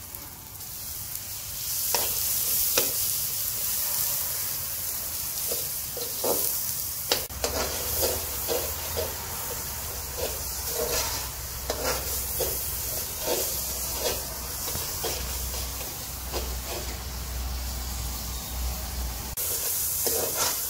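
Onion-tomato masala with spices frying in mustard oil in a kadhai over a wood fire, sizzling and hissing steadily after a little water is added. A metal spoon scrapes and knocks against the pan as it is stirred.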